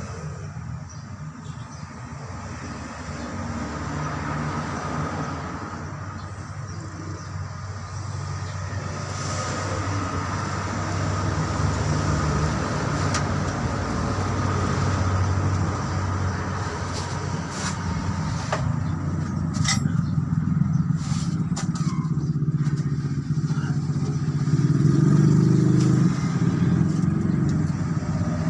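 Truck engine running, a steady low hum that swells and eases, with a few sharp clicks or knocks in the second half.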